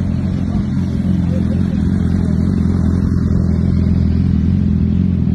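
A car engine idling close by, a steady low rumble with no revving.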